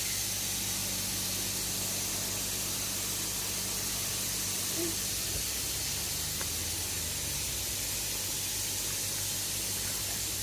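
Koi pond filtration and aeration running: a steady hiss of moving water and air, with a low steady electric hum from the pumps underneath.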